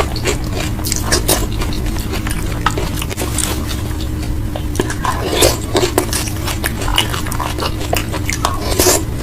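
Close-up eating sounds: biting and chewing with irregular crunchy clicks, and now and then a light clink of a plate or cutlery. A steady low hum runs underneath.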